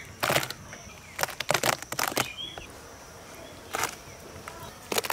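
Cut pieces of raw beef lung dropped and handled in an aluminium tray, making short wet slaps. There is one about a quarter second in, a quick cluster from about one to two seconds, another near four seconds and more at the end.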